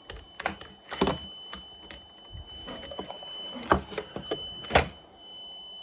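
A CNC control box's emergency-stop alarm sounds a continuous high-pitched tone, the sign that the E-stop is engaged. Over it come several sharp clicks and knocks from handling the wiring and the switch, the loudest two near the end.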